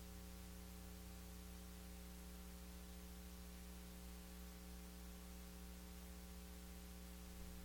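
Near silence apart from a faint, steady electrical mains hum with light hiss.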